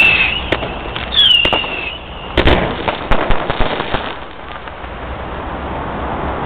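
Fireworks going off: two shrill whistles, the second falling in pitch, among a string of sharp bangs and crackling. It thins out after about four seconds into a steady background noise.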